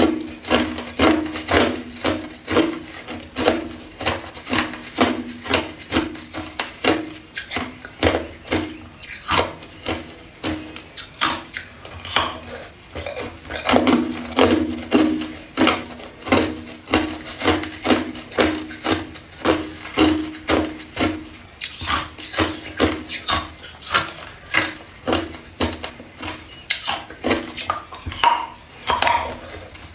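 Hard clear ice being chewed: a steady run of sharp crunches, about two a second.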